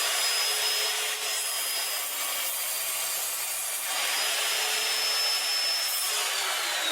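Evolution Rage 4 chop saw running with a high motor whine. The blade cuts through wood between about two and four seconds in, which masks the whine, and about six seconds in the saw is switched off and the whine falls steadily as the blade spins down.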